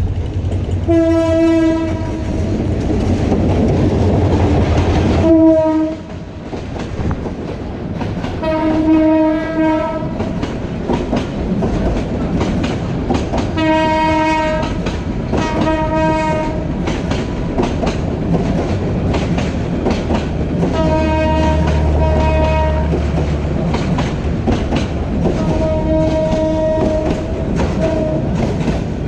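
A diesel-hauled Bangladesh Railway passenger train passing close by, with a continuous rumble and clickety-clack of wheels and coaches. Over it a locomotive horn sounds about seven times, in steady blasts from half a second to nearly three seconds long.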